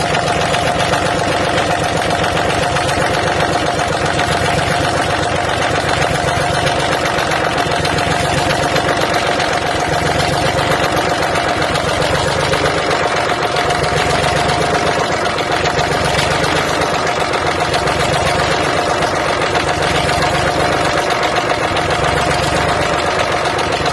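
Lister SR3 three-cylinder air-cooled diesel engine running steadily at idle on its first run after a rebuild. The owner suspects one cylinder is not getting enough fuel.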